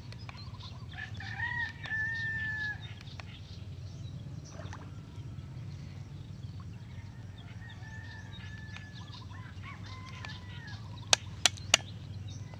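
A rooster crowing: one long, slightly falling call about a second in, with fainter crowing later. Three sharp clicks come near the end.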